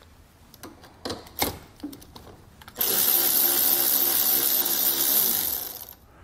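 A few light clicks as a 10 mm socket is fitted onto the battery terminal nut. About three seconds in, a cordless electric ratchet starts and runs steadily for about three seconds, spinning the nut off the negative battery post, then winds down near the end.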